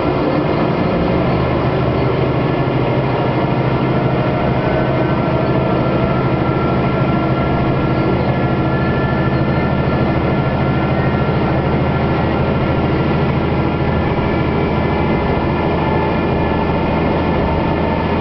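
Kanto Railway diesel railcar running along the line, heard from inside the car: the steady hum of its diesel engine over the rumble of the wheels on the rails, holding an even pitch throughout.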